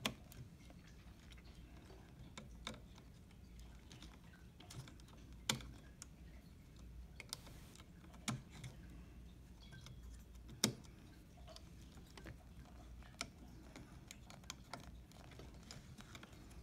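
Small plastic and metal clicks and knocks of hands plugging cable connectors into a Triton ATM's receipt printer: a few sharp clicks a few seconds apart, with fainter ticks of handling between them.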